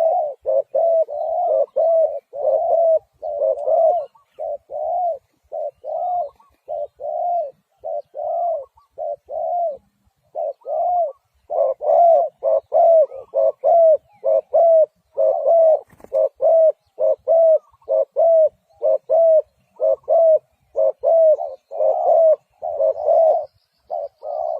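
Spotted dove cooing over and over, a fast run of short low coo notes in phrases broken by brief pauses.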